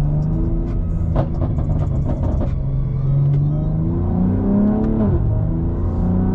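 BMW G80 M3's tuned twin-turbo straight-six accelerating, heard from inside the cabin: the engine note climbs in pitch, drops sharply at an upshift about five seconds in, then climbs again.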